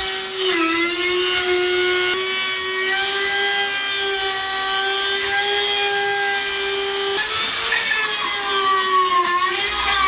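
A corded Dremel-type rotary tool running at high speed while it cuts through a dryer's plastic blower wheel around the hub, to break the stuck wheel off the motor shaft. It makes a steady high-pitched motor whine that dips slightly in pitch now and then as the bit bites into the plastic.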